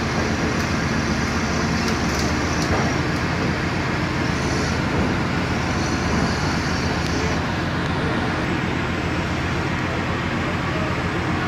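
Diesel engine of a Caterpillar crawler excavator running steadily as the machine drives up a steel loading ramp.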